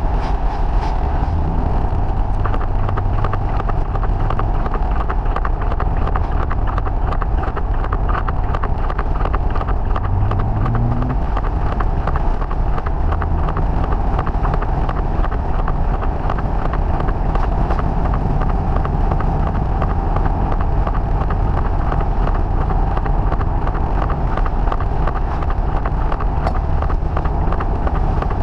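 Sped-up in-car sound of a Triumph TR5 on the move: the 2.5-litre straight-six engine with wind and wet-road tyre noise in a steady drone, overlaid by a rapid fine ticking.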